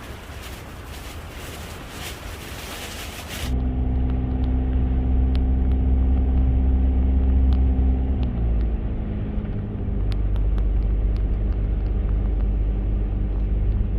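A few seconds of loud hiss-like noise, then a vehicle engine running with a steady low hum whose pitch steps down about eight seconds in.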